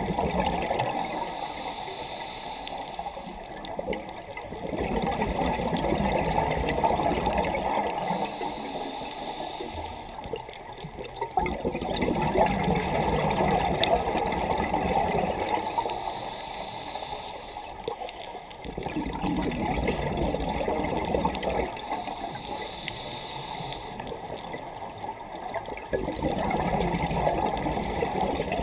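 Underwater bubbling and gurgling from a scuba diver's exhaled breath, swelling and fading in slow surges about every six to seven seconds.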